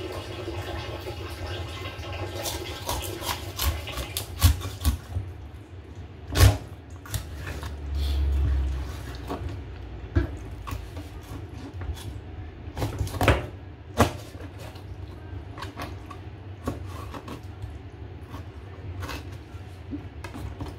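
A large kitchen knife chopping a raw whole chicken into pieces on a cutting board: irregular knocks of the blade hitting the board as it cuts through joints and bone, with a few sharper, louder chops about six seconds in and again around thirteen seconds in. A dull low thump lasting about a second comes partway through.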